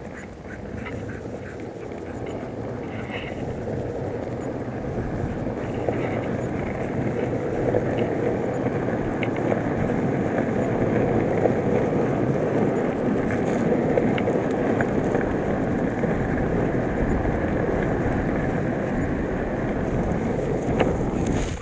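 Longboard wheels rolling on rough asphalt: a steady rumbling roll that grows louder over the first eight seconds or so, then holds.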